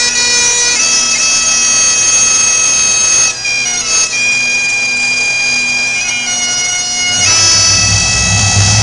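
Highland bagpipes played by several pipers: the steady drones sound under the chanter melody, which breaks off briefly about a third of the way in. Near the end, pipe band drums come in with a low rumble under the pipes.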